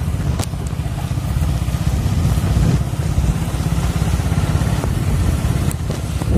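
Motorcycle engine running while riding slowly, a steady low rumble.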